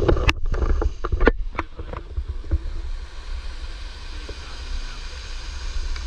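Wind rumbling on an action camera's microphone over a steady rush of noise, with a quick run of sharp knocks and scrapes of hands and camera against rock in the first two seconds.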